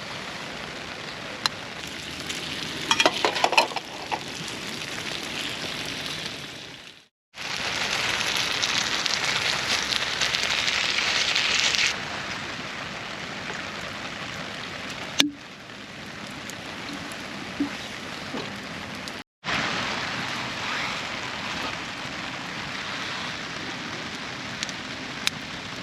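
Food sizzling as it fries over a wood fire, a steady hiss with scattered sharp crackles. The hiss is loudest for a few seconds after a break about a quarter of the way in, and the sound cuts off abruptly twice.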